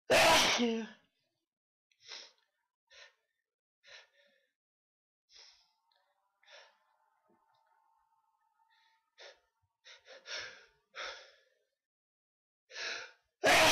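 A person sneezes loudly. Then come a series of short, sharp breaths spaced a second or so apart, quickening into another loud sneeze near the end.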